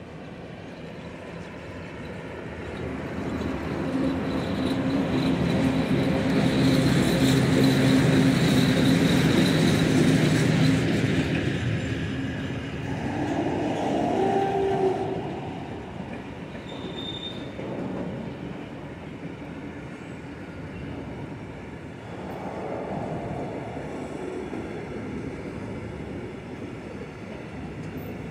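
A PKP ET22 electric freight locomotive passes with a steady low hum, loudest a few seconds in. A long string of tank wagons follows, rolling by with an even rumble and short wheel squeals about midway.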